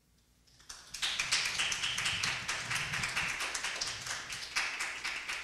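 Audience applauding: many people clapping, starting softly about half a second in and quickly building to full applause.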